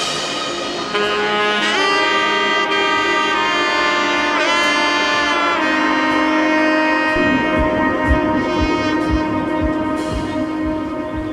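Background music: a wind instrument plays long held notes that bend in pitch, over sustained chords.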